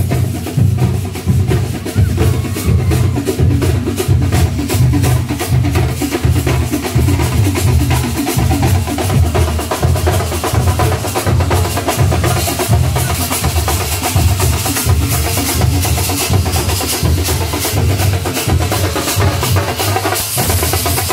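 A street troupe of chenda drums beaten with sticks, playing a loud, fast rhythm of rapid strokes over a pulsing low drum boom.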